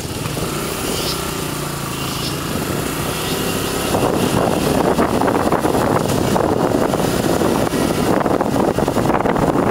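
Motorcycle engine running while riding over a rough dirt track. About four seconds in the sound grows louder and rougher.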